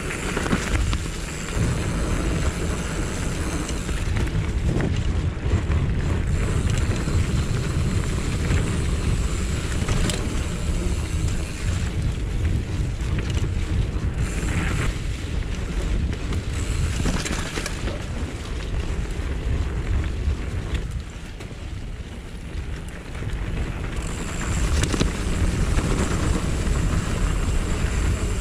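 Mountain bike riding fast over a dirt trail: heavy wind buffeting on the action camera's microphone, with tyre rumble and the bike's rattles and knocks over bumps. The wind dips briefly about three quarters of the way through.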